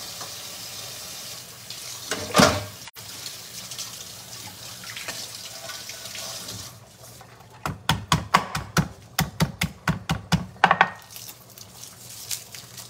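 Kitchen faucet running into a steel pot in the sink, with one loud clank about two seconds in. The water stops about six and a half seconds in, and a quick run of sharp clicks and knocks follows for a few seconds.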